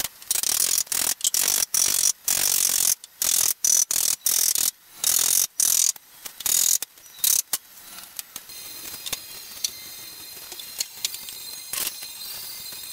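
A hand tool scraping along timber in a quick series of short, uneven strokes, which stop about seven and a half seconds in; after that only faint, scattered light knocks.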